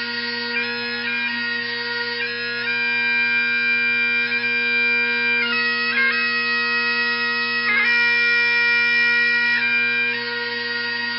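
Bagpipes playing a slow tune: the drones hold one steady low note throughout while the chanter moves between long-held melody notes.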